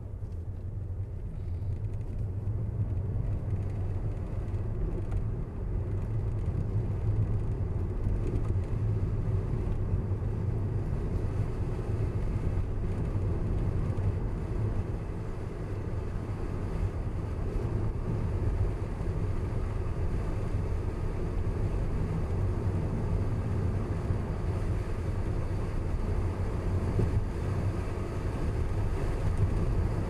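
Car driving along a road: a steady low rumble of tyres and engine that grows louder over the first several seconds as it picks up speed, then holds even.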